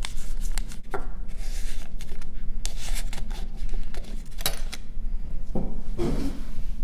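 Paper sail rustling as it is slid onto the wooden mast of a paddleboat model, with light clicks and knocks of the wooden boat and tools being handled on a workbench, the loudest a thud around six seconds in.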